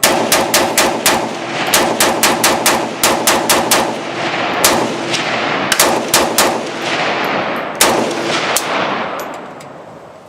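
AK-47 rifle firing rapid strings of shots, about four or five a second, broken by short pauses, each shot trailing off in a long echo. The firing stops about nine seconds in.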